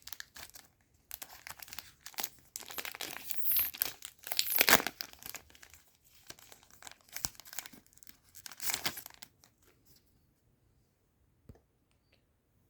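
A trading-card booster pack being torn open, its wrapper crinkling as it is pulled apart and the cards are slid out, in a run of tearing and rustling with the loudest rip a little before halfway. The rustling stops about ten seconds in.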